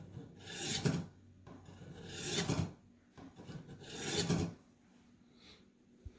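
A Ka-Bar blade drawn through the hones of a Warthog knife sharpener: three rasping strokes, each about a second long and growing louder toward its end. A faint click comes near the end.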